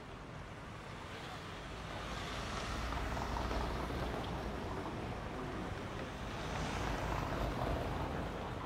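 Street traffic noise: a steady rushing sound that swells twice, once a few seconds in and again near the end, as vehicles pass.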